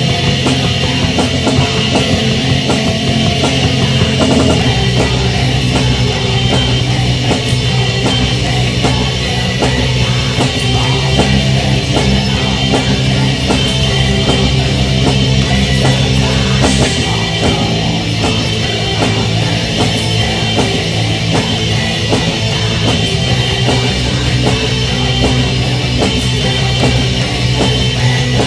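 Heavy metal band playing at full volume: electric guitars, bass guitar and drum kit, steady throughout.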